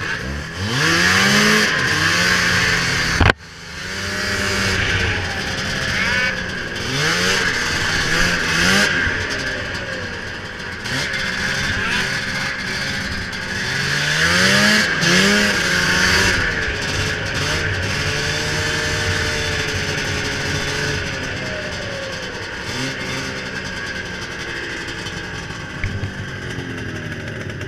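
Ski-Doo 583 snowmobile's two-stroke twin engine on piped exhaust, revving up and easing off again and again as it is ridden. A sharp knock about three and a half seconds in, and the engine note drops off suddenly right after it before climbing again. The engine runs at a lower, steadier note near the end.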